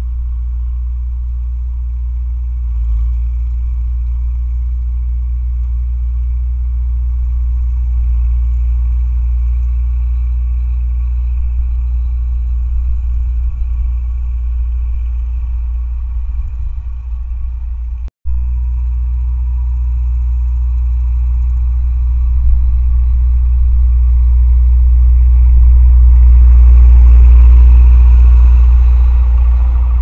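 Massey Ferguson tractor engine running steadily while mowing the field, a loud low drone that grows louder a few seconds before the end as the tractor comes close. The sound drops out for an instant about two-thirds of the way through.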